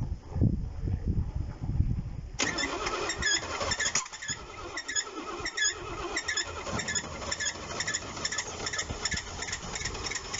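Mercedes-Benz W108 280S's straight-six petrol engine being started: uneven low cranking thumps for the first two seconds or so, then it runs. From about two and a half seconds in, a series of short high chirps repeats over the running engine.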